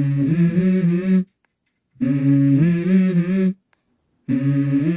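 Background music: a low wordless voice humming a melody in three short phrases of held, stepping notes, with dead silences between the phrases.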